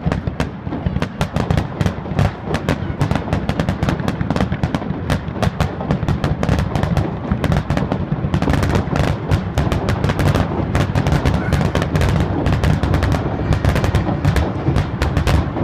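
Fireworks display: a dense, continuous barrage of aerial shell bursts and crackle, many bangs a second, with a heavy low rumble underneath.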